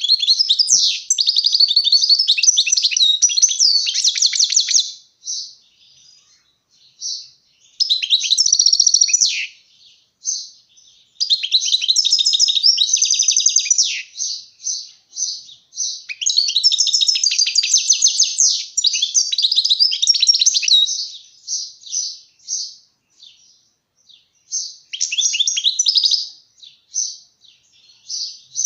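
European goldfinch singing: fast, twittering phrases of trills and rapid notes, coming in bursts of one to five seconds with short pauses and scattered single notes between them.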